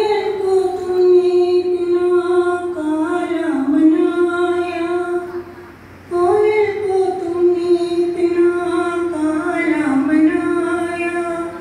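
A woman singing a Hindi devotional bhajan in long, slowly bending held notes: two sung phrases with a brief pause for breath about six seconds in.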